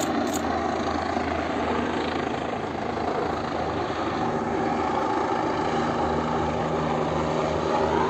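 Helicopter coming in to land, its rotor and engine making a steady drone.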